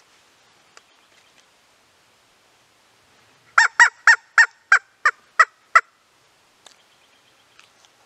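An animal calling: a run of eight loud, evenly spaced call notes, about three and a half a second, starting about three and a half seconds in and lasting about two seconds.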